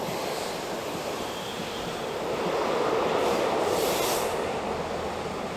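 Freight train of container wagons rolling past with a steady rumble of wheels on rail, swelling louder about three seconds in. Two short bursts of high hiss come over it near the four-second mark.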